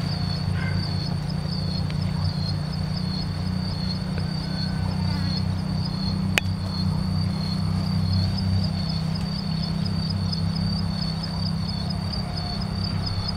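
Insects trilling steadily at a high pitch with a regular pulse, over a steady low hum. A single sharp click about six seconds in.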